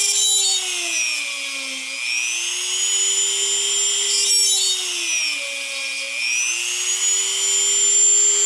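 Handheld rotary tool with a small drill bit running at high speed, drilling holes through a paper template into a wooden electronics-bay sled. Its steady whine drops in pitch twice as the bit bites and loads the motor, then climbs back up each time.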